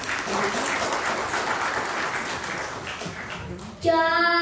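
Audience applause, a dense steady clapping, then about four seconds in a child begins singing a held note.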